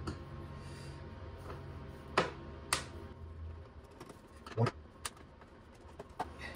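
Scattered sharp clicks and light knocks of a screwdriver and metal hardware as Torx bolts are worked loose at the hinge of a hard motorcycle saddlebag lid, about five in all, over a low steady hum.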